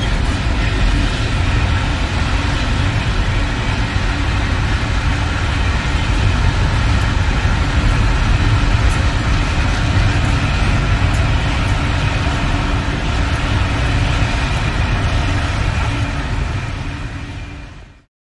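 Steady road, tyre and engine noise inside a Toyota car's cabin while it drives at speed. The noise fades out near the end.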